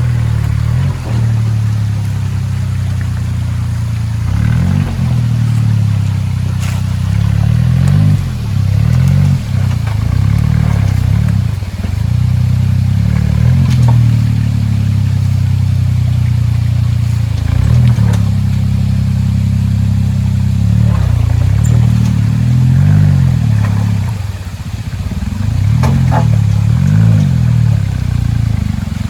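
Suzuki Jimny JA11's small three-cylinder turbo engine working hard on a rock and waterfall climb, its revs rising and falling every few seconds, with a few sharp knocks.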